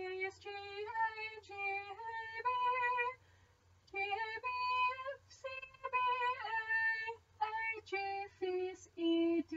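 A woman singing a solfège sight-singing exercise unaccompanied, one short note after another, the pitch moving mostly by small steps up and down. There is a pause of under a second about three seconds in.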